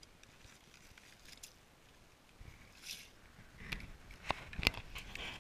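Quiet handling noises on the ice: faint rustling, then a few sharp clicks and crunches of ice, loudest about four and a half seconds in.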